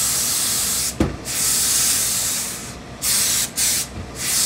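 Tailor's steam iron blasting steam in a series of hissing bursts: two long ones, then three shorter ones, pressing a suit jacket. A single thump about a second in.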